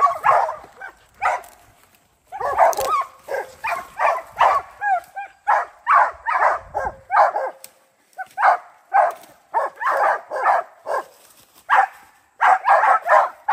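Hunting dogs barking in a fast, steady string of about one to two barks a second, a few barks rising and falling in pitch, with brief pauses between runs.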